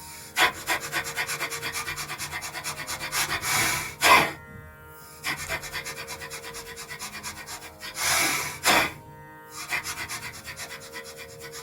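A person doing rabbit breathing: fast, shallow breaths at about five a second in runs of a few seconds, twice broken by a longer, louder breath. Soft sitar background music runs underneath.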